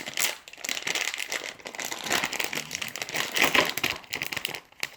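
Plastic snack wrapper crinkling and crackling as it is handled.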